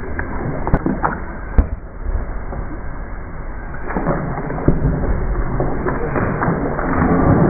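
Pool water splashing and sloshing close to the microphone as swimmers play, with two sharp knocks in the first two seconds. The splashing grows louder from about four seconds in.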